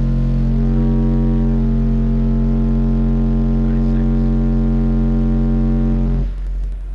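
Two Kicker Comp car subwoofers, driven by an Infinity Reference 611a mono amplifier, playing a steady 45 Hz test-tone burp at high volume, with a stack of overtones above the deep note; the amp is at full output for a clamp-meter wattage reading. The tone cuts off about six seconds in.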